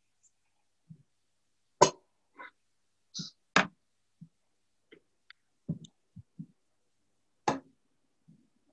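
Scattered knocks and clinks of dishes and utensils being handled while food is plated, with three sharper knocks standing out about two, three and a half, and seven and a half seconds in.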